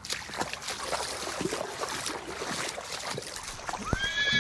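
Water splashing and trickling over flooded ground, with many small drips and spatters. Just before the end a horse whinnies, starting with a rising cry.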